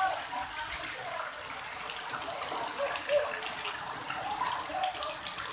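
Rain falling steadily on a wet paved yard, an even hiss.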